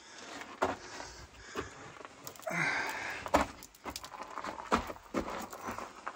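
Footsteps crunching and scuffing on loose rock and rubble in a mine tunnel, irregular steps with heavy breathing. About two and a half seconds in, a short vocal sound.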